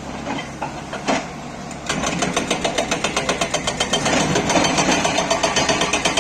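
Tata Hitachi 200 excavator's hydraulic rock breaker hammering hard stone in rapid, even blows, starting about two seconds in over the machine's running engine; a single knock about a second in.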